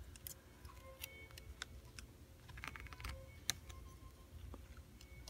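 Faint, irregular small clicks and taps of a pry tool and fingertips working at the Wi-Fi antenna flex connector inside an opened iPad 2, the sharpest click about three and a half seconds in.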